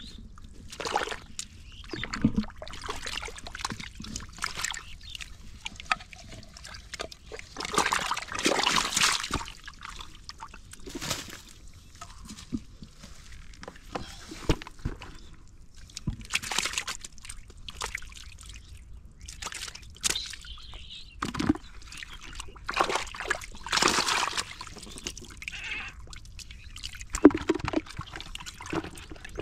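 Hands sloshing and splashing in muddy water in a hole in the ground, in irregular bursts.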